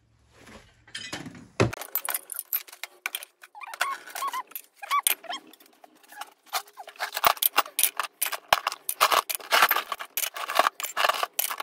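Cast aluminum sewing-machine parts being dropped one after another into a plastic tub, clattering and clinking against each other with short metallic rings. It starts about a second and a half in.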